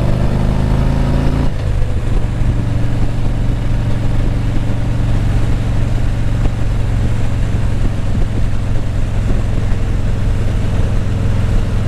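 Motorcycle engine running while riding at steady speed, with a constant rush of wind and road noise over it; the engine note shifts about a second and a half in.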